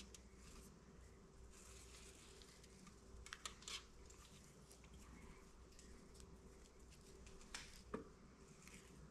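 Near silence with a few faint rustles and ticks, a cluster about three seconds in and another near the end, as artificial sinew is pulled through a bundle of dried pine needles.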